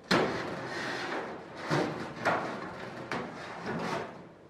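A wooden board knocking and scraping against a thin aluminum wing skin as it is pushed into place to hold the sheet tight. There is a sharp knock right at the start, then several separate rubs and knocks.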